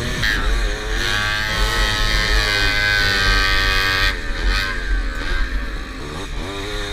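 Tomos moped's small two-stroke engine revving hard under racing load: the pitch climbs and holds high, falls off about four seconds in as the throttle eases, then climbs again near the end.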